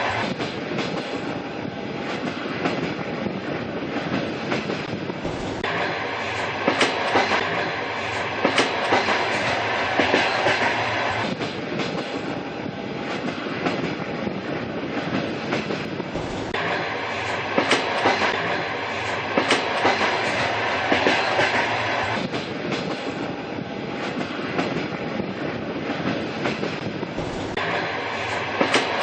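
A train running steadily along the track, its wheels clicking over the rail joints in a regular clickety-clack over a constant rumble.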